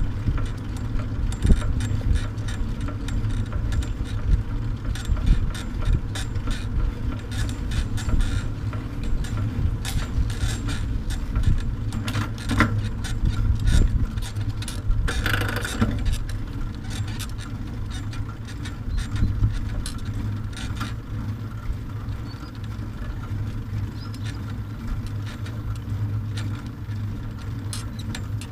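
Wind buffeting the microphone over the steady rolling rumble of a bicycle-towed dog trailer on an asphalt path, with frequent small rattles and clicks from the trailer and its tow bar over bumps.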